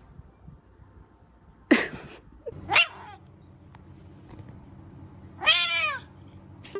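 Domestic cat calling three times: a sharp, noisy call about two seconds in, a short rising call, then a longer wavering call near the end, the sounds of an annoyed cat warning off a hand.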